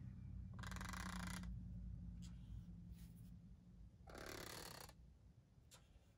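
Tombow Dual Brush Pen's brush tip drawn across paper: two faint scratchy pen strokes, about a second in and again about four seconds in, each under a second long.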